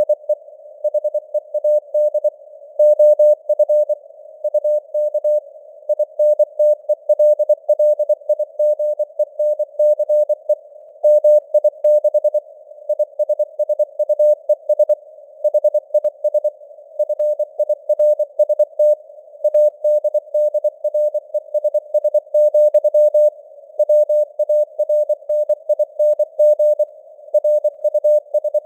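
Morse code (CW) at 24 words per minute: a single steady-pitched tone keyed on and off in rapid dots and dashes, spelling out news headlines. Underneath runs a faint hiss of simulated radio noise.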